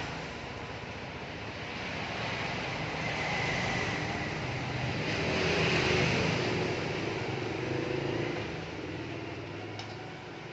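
Road traffic noise as a vehicle passes by. It grows louder to a peak about six seconds in, then fades.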